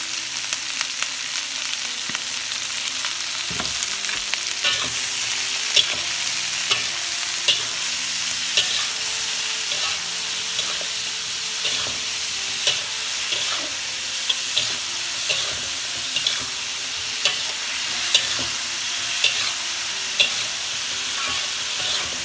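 Long beans sizzling as they stir-fry in a metal wok, with sweet soy sauce just poured in. From a few seconds in, a metal spatula scrapes and knocks against the wok about once a second as the beans are tossed.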